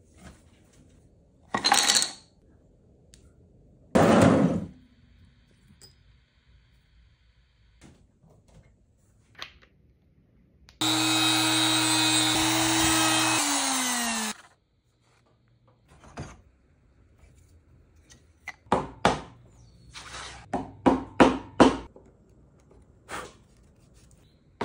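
A compact trim router running steadily for about three and a half seconds, then cut off and winding down with a falling pitch. Before it come two short, loud noisy bursts, and after it a quick run of sharp knocks.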